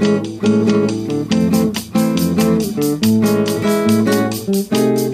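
Classical guitar played solo: plucked chords and melody notes in a steady, quick rhythm over a moving bass line.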